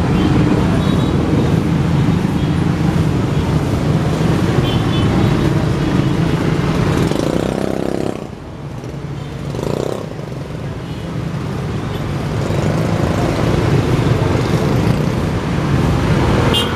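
Steady road-traffic noise from motorcycles and cars queued at a closed railway level crossing, their engines running. The sound drops briefly about halfway through.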